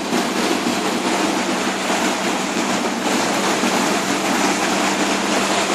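Steady rushing noise of wind and water aboard a boat underway, with no distinct events.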